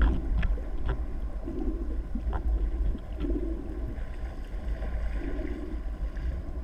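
Underwater ambience picked up by a camera: a steady low rumble of water with a few sharp clicks and three soft, muffled pulses about two seconds apart.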